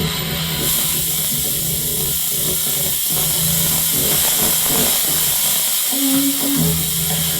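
Experimental electronic noise from a no-input mixer and microwave interference: a steady high hiss over dense crackling and a low hum, with a short higher tone about six seconds in.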